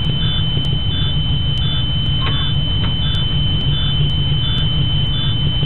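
Electronic warning beeps inside a school bus, repeating about three times every two seconds, over a steady high tone and a constant low rumble.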